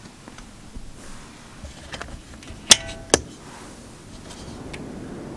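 RV escape window latches being flipped open by hand: a few light clicks, then two sharp snaps about half a second apart, the first ringing briefly.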